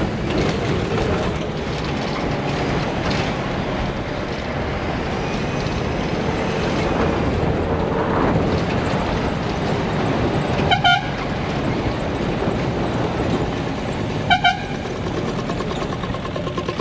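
Moving bus: steady engine and road noise, with two short vehicle-horn honks a few seconds apart, the first about two-thirds of the way through.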